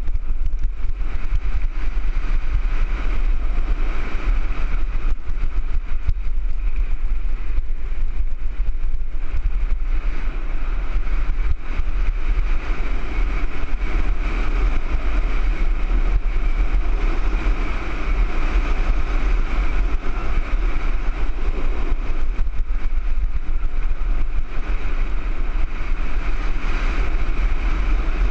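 Wind rushing over a helmet-mounted camera's microphone, with a mountain bike's knobby tyres rolling over a loose dirt trail: a steady, loud rumble and rush.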